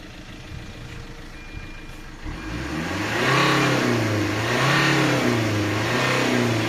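Tata Zest engine idling, then revved from about two seconds in, its pitch rising and falling in several swells. It runs with a new timing chain fitted and its intake manifold freshly cleaned of soot.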